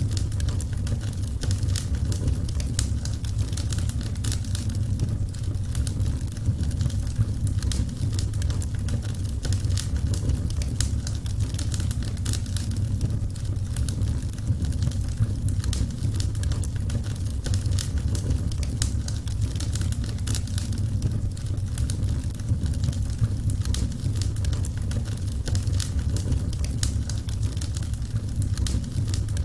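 Burning wood fire crackling, with frequent small sharp pops over a steady low rumble.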